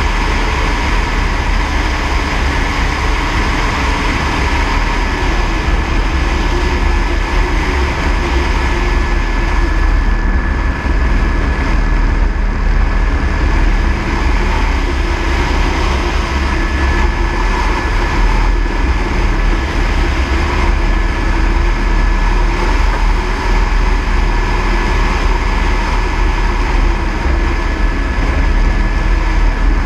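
Airbus AS350 B3e helicopter in flight, its rotor and Arriel 2D turboshaft running steadily, with a deep rumble under a thin high whine held on one pitch.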